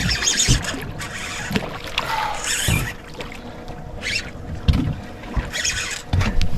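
Water splashing and sloshing around a small boat in irregular surges.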